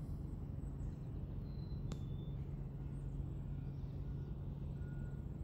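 Steady low background hum, with one faint click about two seconds in.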